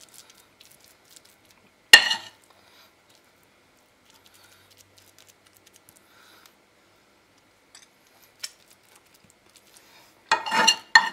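Metal spoon pressing and spreading an egg filling into a hollowed-out bread loaf on a plastic cutting board: faint scrapes and ticks, with one sharp clink about two seconds in.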